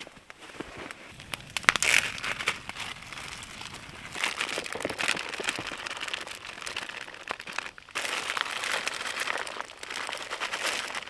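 Continuous crinkling and rustling, with sharp clicks scattered through it and a brief pause about eight seconds in.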